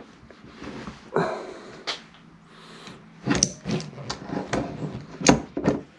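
Heavy-duty lever crimping tool with die jaws being worked to crimp a lug onto thick battery cable and handled on a workbench: a run of scrapes, clicks and metal clunks, the loudest knock about five seconds in.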